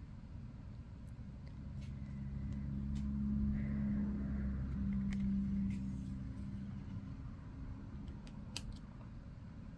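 A low mechanical hum of several steady pitches swells up about a second in, is loudest in the middle and fades away near the end. Light clicks and taps of stiff cards being handled and shuffled come through now and then.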